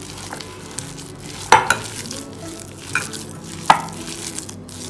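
Hands squishing and mixing grated bottle gourd with gram flour in a glass bowl: a soft, wet squelching rustle. A few sharp clicks stand out, about a second and a half in and again near three and four seconds.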